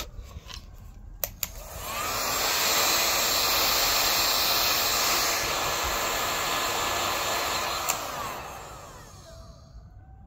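Electric heat gun blowing on its high setting. After a click about a second in, it rises to a steady rush of air with a faint fan whine. Near the end another click comes, and the fan winds down with a falling whine.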